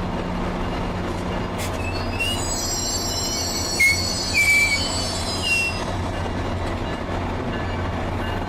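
MARC commuter train's brakes squealing as it slows into the station: several high-pitched squeals, loudest about four seconds in, over the train's steady low rumble. The squeal is the sign of squeaky brakes in need of fixing.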